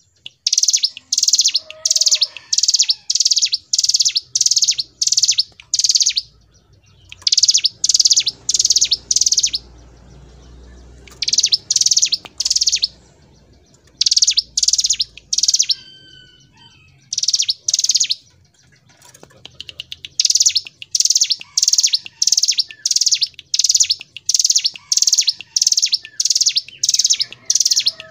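Ciblek gunung (a prinia) singing: a long run of loud, sharp, high notes repeated about twice a second, in bouts broken by brief pauses.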